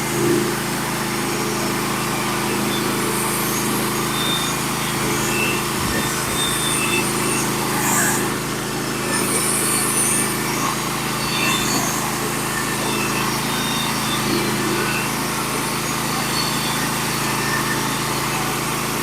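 Manual sawmill's small engine running steadily under load as the saw cuts a board through the log, with a couple of faint clicks along the way.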